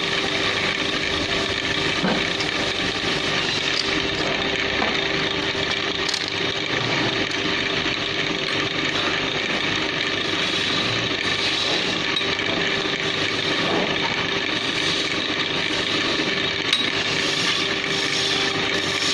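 Wood lathe running with a steady motor hum while a turning tool cuts the spinning wooden table leg, giving a continuous scraping hiss.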